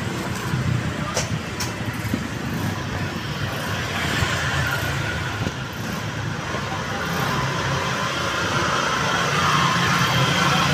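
Steady background hum of motor vehicles, a continuous engine-like rumble.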